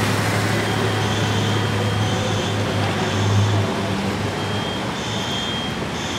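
A vehicle engine running with a steady low hum that fades a little partway through, over a broad rushing noise. A short high-pitched beep repeats about once a second.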